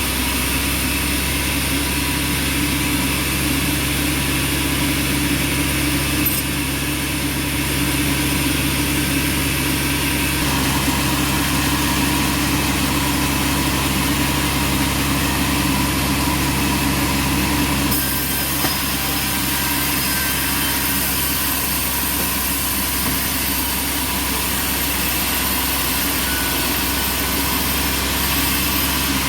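Bandsaw sawmill machinery running with a steady motor hum; a higher hiss joins in about 18 seconds in.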